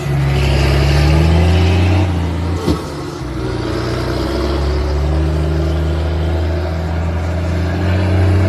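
Volvo FH truck's diesel engine running loud through a Capanema exhaust, its low growl rising, dropping off about two seconds in, then climbing steadily again. A single short sharp knock sounds just before the engine note picks up again.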